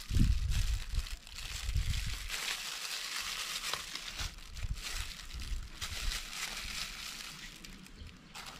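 Thin plastic food glove crinkling and rustling as gloved hands handle and split soft peeled bananas with a knife over a stainless steel bowl. A few low bumps come in the first two seconds.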